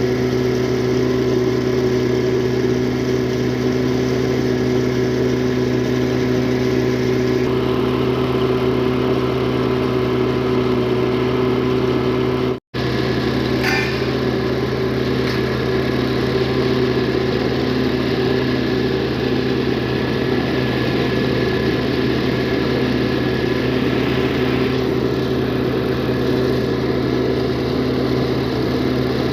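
An engine running steadily at a constant speed, with a low, even hum. It cuts out for an instant about halfway, then carries on unchanged.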